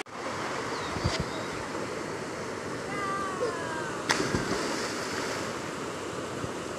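Steady rush of a shallow river flowing over a small weir, with a short sharp splash about four seconds in as a person backflips into the water.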